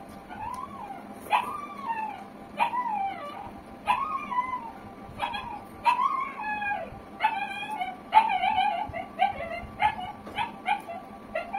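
A dog whining and whimpering in repeated rising-and-falling cries, about one every second or so, turning quicker and wavering about two-thirds of the way in.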